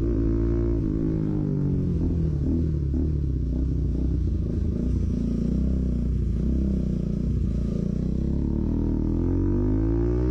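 Bajaj Pulsar NS200's single-cylinder engine running loud through an SC-Project aftermarket exhaust while the motorcycle is ridden. The pitch dips and rises with the throttle, climbing steadily near the end as the bike accelerates.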